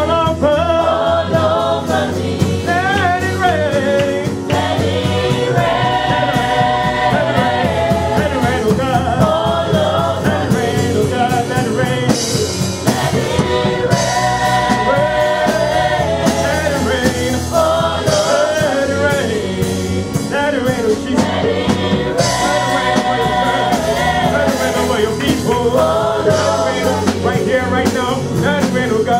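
Gospel praise and worship singing: a group of singers, mostly women, sing together into microphones over a live church band with drums, keyboard and bass, heard through the PA.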